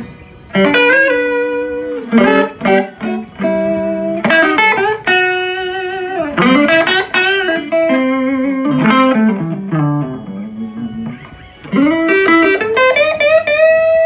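1980s Aria Pro II U-60T Urchin electric guitar played through an amplifier: a lead line of single picked notes with several string bends, ending on a long held note.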